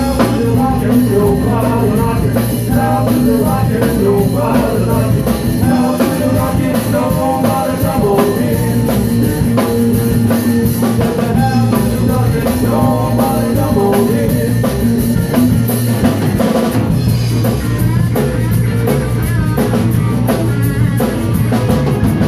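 Live rock band playing loudly: a drum kit and electric guitars, with a man singing into a microphone.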